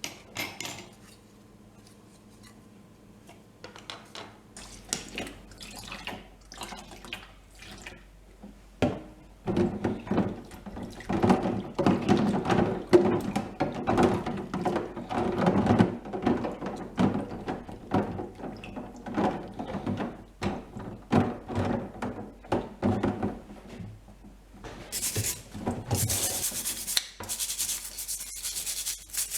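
Plastic TV remote casing being scrubbed and rubbed while washed with water, in many irregular scraping strokes. Near the end, water runs steadily from a tap.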